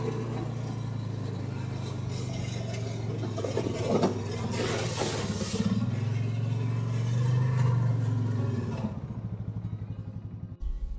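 Motorbike engine running steadily under way, its note easing and picking up again, with a rattling clatter about four seconds in. The engine note drops away near the end.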